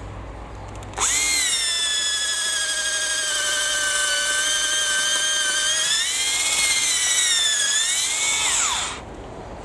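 Makita XRH05 36-volt cordless rotary hammer driving a 10 mm auger bit into timber, its motor whining steadily once it starts about a second in. The pitch sags twice as the bit loads the motor, then winds down and stops near the end.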